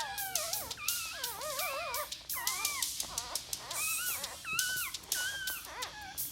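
A dog whining in a run of short, high, wavering whimpers, mixed with frequent sharp clicks.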